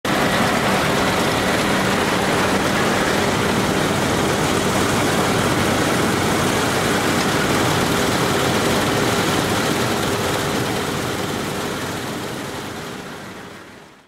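CLAAS combine harvester running steadily under load while it cuts wheat: engine and threshing machinery in one dense mechanical din. It fades out over the last few seconds.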